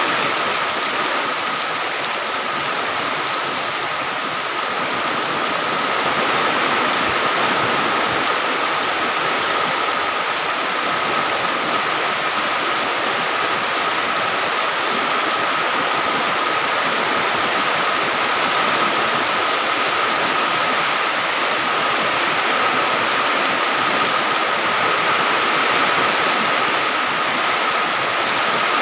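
Steady rain falling, an even hiss with a steady high-pitched tone running through it.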